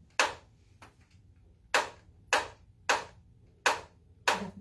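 Handheld chiropractic adjusting instrument firing against a small dog's spine: about six sharp clicks at uneven intervals of roughly half a second to a second.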